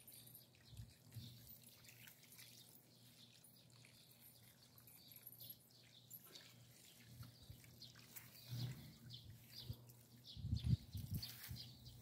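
Faint trickle and drip of water from a garden hose soaking loose soil, with birds chirping. A few low thumps come near the end.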